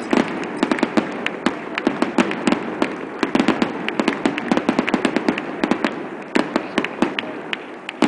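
Aerial fireworks going off in quick succession: a dense run of sharp bangs and crackling pops, several a second, with no let-up.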